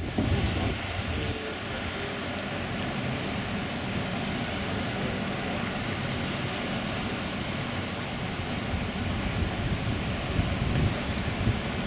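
Steady rush of wind and sea heard from high on a ship's deck, with wind buffeting the microphone in gusts near the end.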